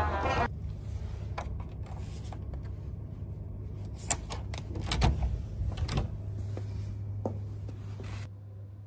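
Background music that stops about half a second in, then a low steady hum with scattered light clicks and knocks, the sharpest about four, five and six seconds in.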